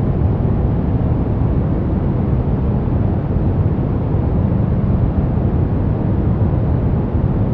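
Brown noise: a steady, deep rumbling hiss with most of its weight in the low end, unchanging throughout.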